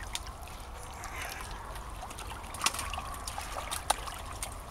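Water trickling and dripping from a keepnet as it is hauled up out of a pond, with a couple of louder splashes in the second half.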